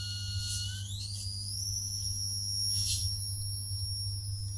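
High-frequency electrical whistle from a mercury motor experiment's setup: steady at first, then rising sharply in pitch about a second in and holding at the new, higher pitch, over a steady low hum. The change in the whistle points to an adjustment of the drive made out of view.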